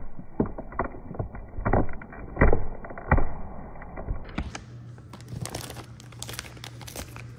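Cat chewing and licking at the twist-tied end of a plastic bag, the plastic crinkling in irregular crackles and clicks. About four seconds in the crinkling turns sharper and brighter over a steady low hum.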